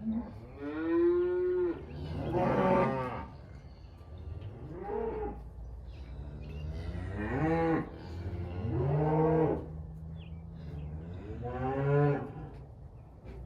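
Cattle mooing, about six or seven long calls one after another at differing pitches, over a low steady hum.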